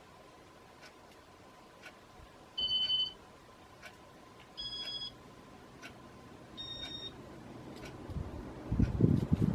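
Three short electronic beeps about two seconds apart, each a two-tone chime pitched differently from the last. Under them a faint tick sounds about once a second, and a low rumble rises near the end.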